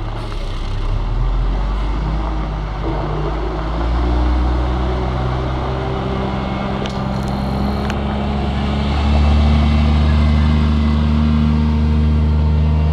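McNeilus front-loader garbage truck pulling away, its engine pulling up through several gear changes. The pitch steps up each time and the engine gets louder about nine seconds in.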